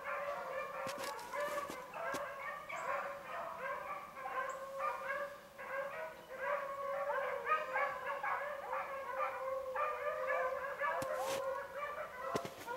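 A pack of beagles baying, several hounds' voices overlapping without a break: the hounds running a rabbit's track in full cry.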